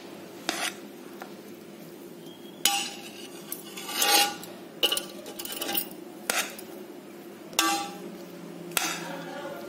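A spatula scraping and knocking against the side and bottom of a metal cooking pot while cooked rice is stirred and tossed, in irregular strokes about once a second, over a steady low hum.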